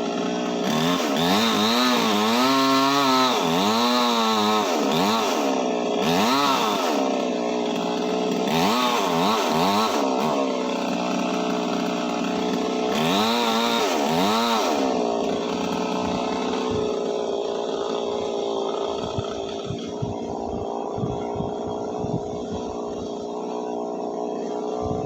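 Petrol chainsaw engine being revved again and again, its pitch climbing and dropping with each squeeze of the throttle. After about fifteen seconds it settles to a steady, lower idle.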